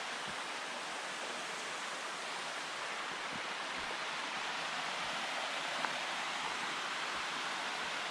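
Mountain stream running: a steady rush of water.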